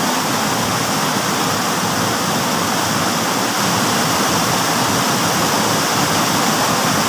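Water rushing over a small rocky cascade in a stream: a loud, steady, even roar of white water.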